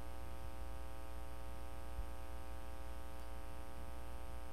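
Steady electrical mains hum with a row of evenly spaced steady tones over light hiss, from the recording setup; one faint click about two seconds in.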